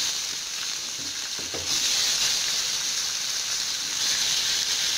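Chopped onions sizzling as they fry in hot oil with cumin seeds in a kadai. It is a steady sizzle that grows louder about two seconds in.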